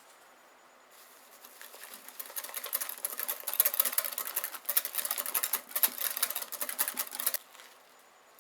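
A wire whisk beating a custard mixture fast in a heat-proof bowl, a quick run of ticks from the wires against the bowl. It starts about a second in, builds, and stops sharply near the end.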